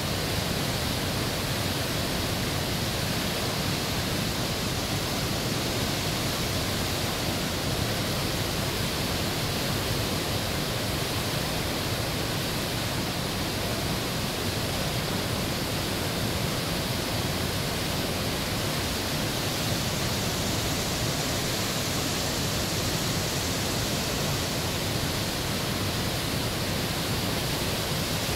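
The Great Falls of the Potomac River: whitewater rushing over rock ledges as a steady, unbroken wash of water noise.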